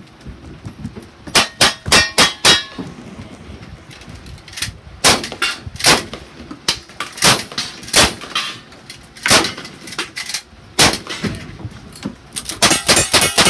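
A rapid string of gunshots from cowboy action firearms, about every half second in bursts, each followed by the ringing clang of steel targets being hit. Near the end the shots and clangs come thick and fast.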